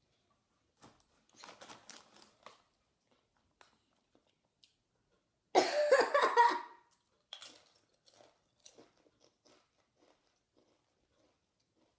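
Crunching and chewing of Doritos tortilla chips in the mouth: scattered faint crunches, then a much louder stretch of about a second and a half in the middle.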